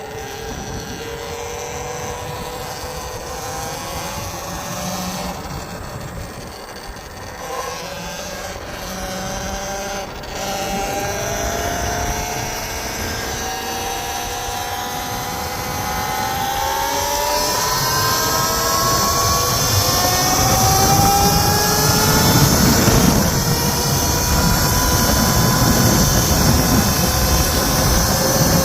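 Talaria XXX electric dirt bike's motor whining as it rides, the pitch climbing again and again as it accelerates. Wind and tyre rush grow louder in the second half.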